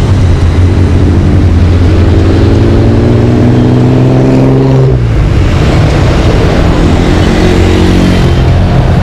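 Street traffic with a heavy road vehicle's engine accelerating: its pitch climbs, drops sharply about five seconds in as it changes gear, then climbs again.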